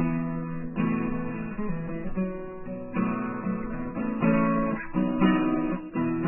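Acoustic guitar strummed, chords struck afresh every second or so: the instrumental introduction to a folk sea song, before the singing comes in.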